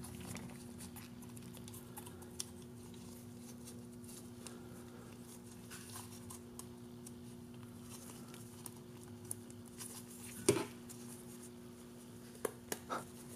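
Quiet room tone with a steady low hum, broken by a few small clicks and taps of drone frame parts being handled and fitted together; the sharpest click comes about ten and a half seconds in, and a quick run of clicks comes near the end.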